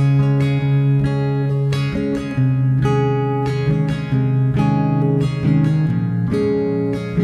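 Background music of strummed guitar chords, struck about twice a second, with the chord changing every second or two.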